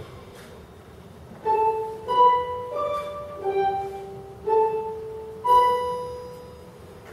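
Instrumental music: after about a second and a half of low background, a slow line of about six single ringing notes, each starting sharply and dying away.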